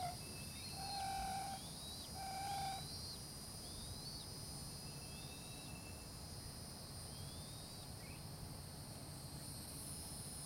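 Outdoor wildlife sound: a steady high insect drone, with three held bird notes in the first three seconds and a run of short, high chirps into the middle.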